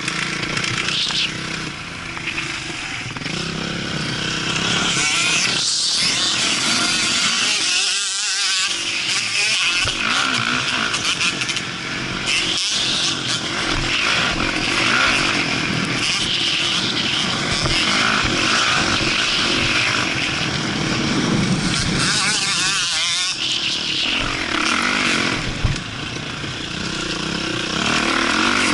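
Kawasaki KX450F motocross bike's single-cylinder four-stroke engine ridden hard under throttle, with wind noise on the microphone. The engine note drops away briefly twice, about eight seconds in and again around twenty-three seconds, then picks up again.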